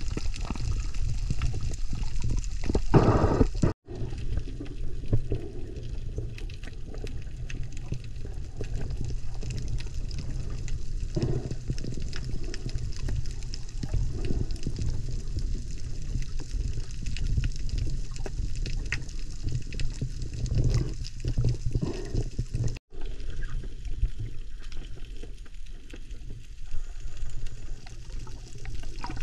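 Underwater ambience heard through a submerged microphone: a muffled low rush of moving water with scattered faint clicks and crackle, louder for a moment about three seconds in. The sound drops out for an instant twice.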